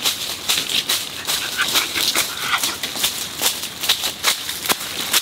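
Footsteps crunching through dry leaf litter: an irregular run of crackling, rustling steps.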